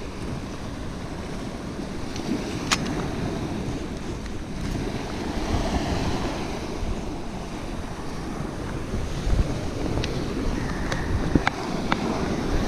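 Small sea waves washing onto a rocky shore, with wind buffeting the microphone and a few sharp clicks.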